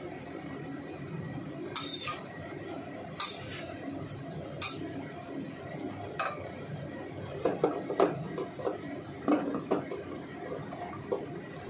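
Metal spatula clinking and scraping against a stainless-steel wok as Chinese cabbage is stir-fried, a sharp clink about every second and a half. A quicker run of louder clinks comes in the second half.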